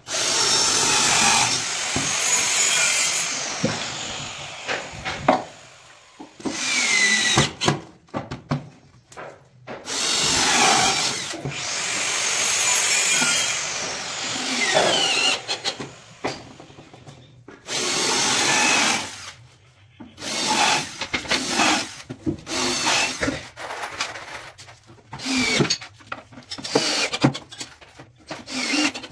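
Electric power drill running in repeated bursts of a few seconds each, its pitch dropping within some runs, with short knocks and handling noise in the gaps.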